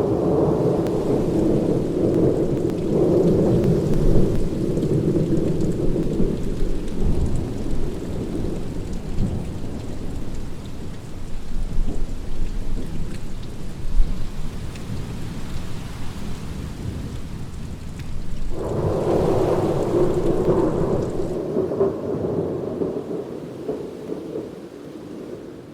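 Thunder rolling over steady rain: a long rumble fades away over the first several seconds, and a second peal comes in suddenly about three-quarters of the way through and dies away near the end.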